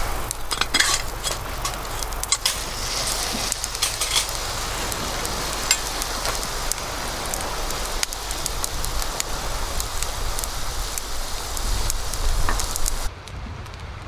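Okonomiyaki sizzling and frying in a cast iron skillet over a campfire, with a spatula scraping and turning it in the pan during the first few seconds. Near the end the sizzle drops away suddenly, leaving quieter crackling of the wood fire.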